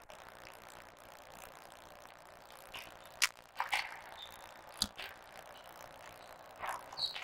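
Squash rally: two sharp smacks of the ball off racket and wall, about three and five seconds in, with rubber-soled shoes squeaking briefly on the court floor, over a steady hiss.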